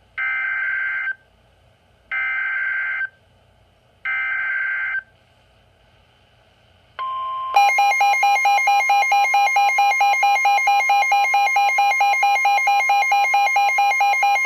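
Emergency Alert System tones for a severe thunderstorm warning. Three one-second bursts of SAME header data squeal come about a second apart. About seven seconds in, the steady weather-radio warning alarm tone starts, and a loud rapid pulsing electronic alarm beeps over it.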